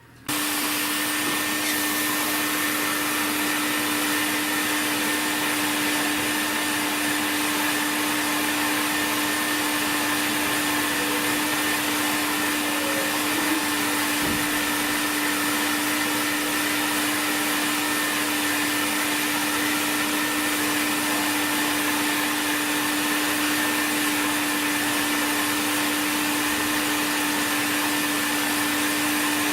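A small motor-driven blower switches on abruptly at the start and runs steadily, a loud even rushing hiss with a steady hum.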